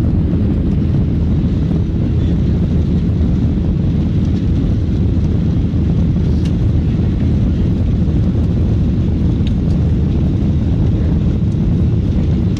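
Airliner engines and airflow heard from inside the cabin: a steady, loud, low rumble that holds even throughout.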